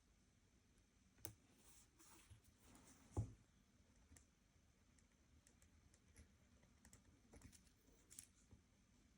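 Quiet journaling desk sounds: scattered faint clicks and taps of stationery being handled, with one soft thump about three seconds in.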